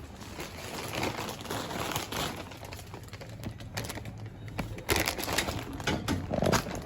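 Crinkling and rustling with a few light knocks, as of a package and its packaging being handled and set down.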